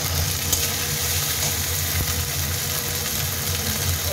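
Chopped tomato and ginger paste sizzling in hot oil in an aluminium kadai as they are sautéed, with a steady low hum underneath.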